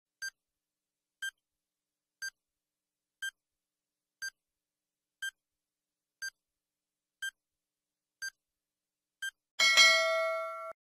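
Quiz countdown-timer sound effect: a short tick once a second, ten times, then a loud ringing chime about a second long signalling that time is up.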